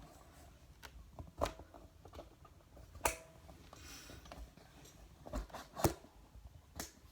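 Light clicks and knocks of hands handling plastic and metal parts, six or so scattered over a few seconds, the loudest near the end.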